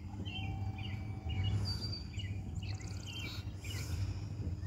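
Small birds chirping, short call notes repeated about every half second, with a brief whistle near the start and a short buzzy trill in the middle, over a steady low hum.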